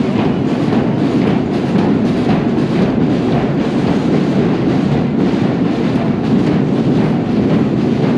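Marching-band drums in a parade playing a fast, steady beat.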